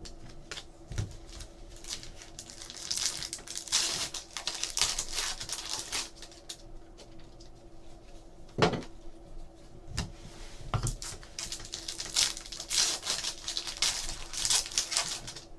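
Trading card packs and cards being handled: wrappers crinkling and tearing open, with cards rustling and sliding against each other, and a few sharp clicks and soft knocks on the table.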